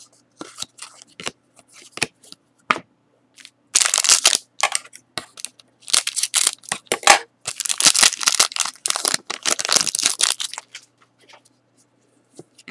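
Scissors cutting open a plastic-wrapped trading-card pack, the wrapper crinkling and tearing in three loud stretches from about four seconds in. Before that there are only light clicks of cards being handled.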